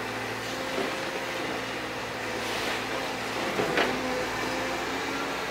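Liebherr R926 compact excavator's diesel engine running steadily while the tiltrotator bucket works the slope, with a short sharp knock about three and a half seconds in.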